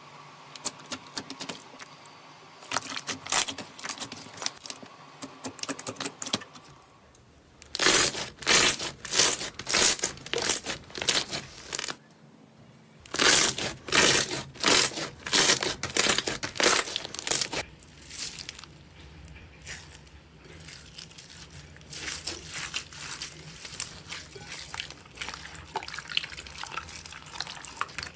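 Slime being squeezed, stretched and poked by hand, giving rapid crackling and popping clicks. Two loud runs of pops come about a third and halfway through, separated by a short pause, with softer clicking before and after.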